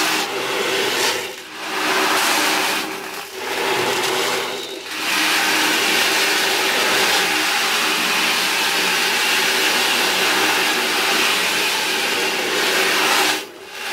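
Ocean drum: steel beads rolling across the inside of a frame drum, making a hissing wash like surf breaking on a shore. Three short swells in the first five seconds, then one long, even roll that stops shortly before the end.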